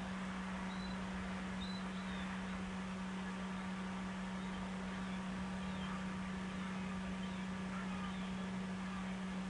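A steady low electrical hum over constant hiss, with a few faint, short, high chirps in the first couple of seconds.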